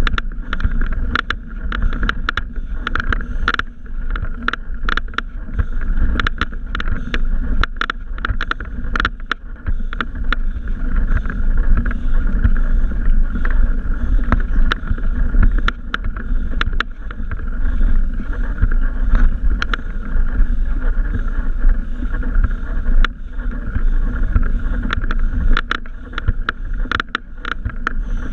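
Bicycle riding over a rough trail: a steady low rumble of tyres and air noise, with frequent sharp rattles and clicks from the bike jolting over bumps.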